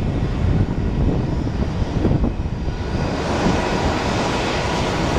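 Embraer 175 jetliner climbing out after takeoff, its two GE CF34-8E turbofan engines at takeoff-climb power: a steady, distant rumble with a hiss that grows stronger about halfway through.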